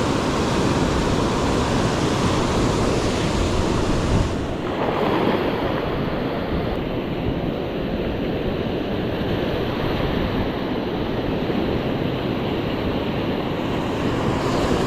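Ocean surf breaking and washing up the shore in a steady loud rush, with wind buffeting the microphone. The high hiss drops away abruptly about four seconds in and returns near the end.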